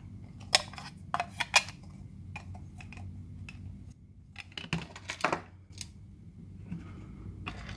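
Small plastic clicks and taps as a circuit board is handled and seated into a plastic enclosure, with a cluster of sharp clicks in the first second and a half and another about five seconds in.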